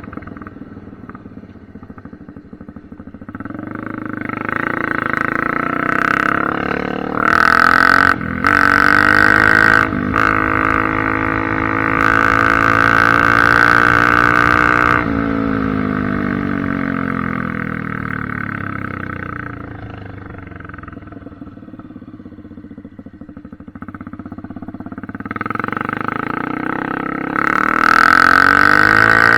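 Honda CRF250F single-cylinder four-stroke engine with the exhaust baffle removed, accelerating and shifting up several times to a loud high-speed run, then easing off for several seconds before accelerating hard again near the end.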